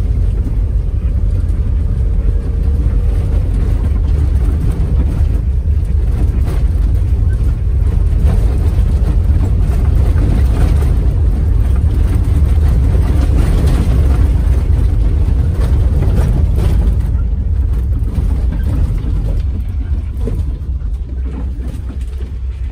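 Cabin noise inside a Toyota Land Cruiser driving on a rough dirt road: a steady deep engine and road rumble with small rattles and knocks from the bumps, easing slightly near the end.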